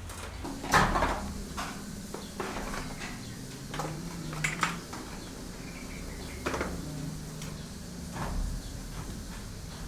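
Scattered clinks and knocks of hard objects being handled, the loudest about a second in, over a faint low hum.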